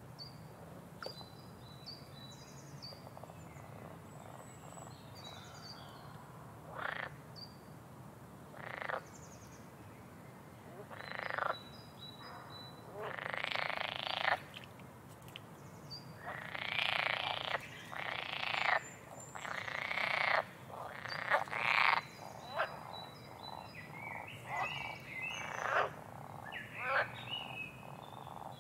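A cat lapping water from a thin stream running from a tap into a sink: bouts of quick, wet laps and splashes over a low trickle. They are sparse at first and come thick and loud after about seven seconds.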